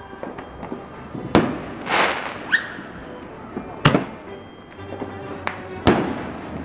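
Consumer aerial fireworks going off: three sharp bangs about two seconds apart, with a hissing spray of noise about two seconds in.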